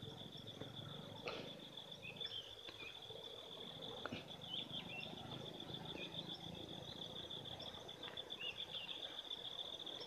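Insects trilling steadily at a high pitch, with a few faint short chirps and soft clicks over it.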